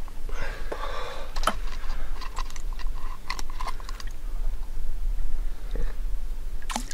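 Scattered light clicks and knocks of fishing tackle and pliers being handled in a boat while a caught fish is unhooked, over a steady low hum.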